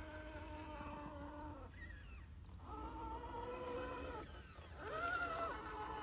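Electric motor and gears of a scale RC crawler truck whining as it drives, the pitch falling away twice, about two and four and a half seconds in, then climbing back as the throttle is applied again.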